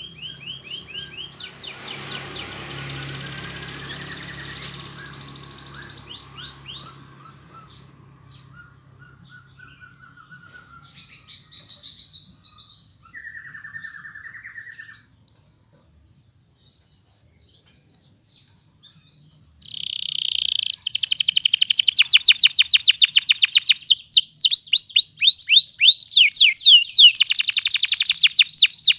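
Domestic canary singing: softer warbling and scattered chirps, a short pause, then about two-thirds of the way in loud, very fast rolling trills.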